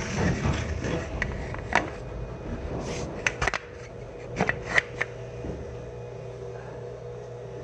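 Inside a 105 series electric train braking to a stop: the low rumble of the wheels and MT55A traction motors fades. Several short sharp squeaks and clanks come between about two and five seconds in, then a steady low hum from the onboard equipment as the train stands.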